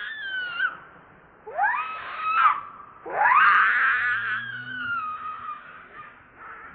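Newborn macaque screaming in distress as its mother handles it: shrill, wavering cries that rise and then slowly fall, in three bouts, the last one long and trailing off.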